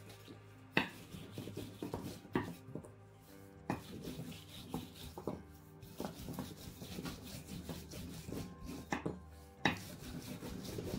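Kitchen work on a wooden board: rubbing and scraping with irregular sharp knocks, the loudest about a second in and again near the end.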